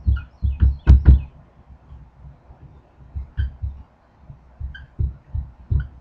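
Dry-erase marker writing on a whiteboard: a quick run of dull knocks from the pen strokes in the first second or so, the two loudest near one second in, then a pause and scattered strokes with faint squeaks.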